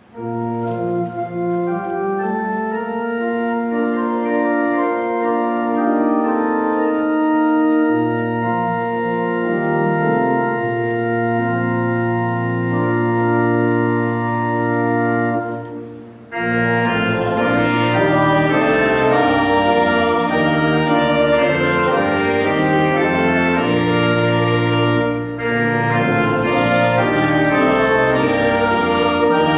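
Church organ playing a hymn tune in sustained chords. About halfway through it breaks off briefly, then resumes with a fuller, busier sound.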